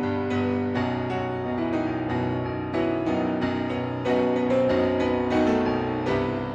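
Instrumental piano music: a slow passage of held notes and chords.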